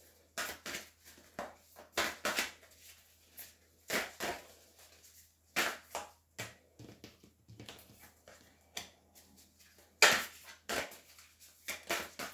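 Cards being shuffled and handled by hand: irregular crisp rustles and taps with short pauses between them, the loudest about ten seconds in.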